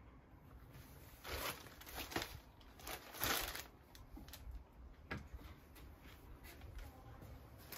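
Plastic mailer bag crinkling in a few short rustles as it is picked up and handled, followed by a few faint ticks.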